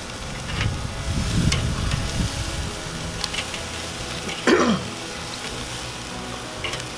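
Chicken thighs sizzling over a charcoal fire in a kettle grill, with a few light clicks. About four and a half seconds in, a brief louder sound falls in pitch.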